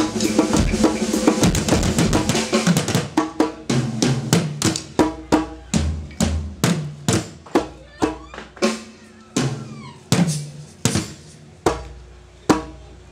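Two percussionists beating a drum with sticks in a live drum break. It starts as a fast, dense flurry of strikes and slows to single hits about a second apart near the end.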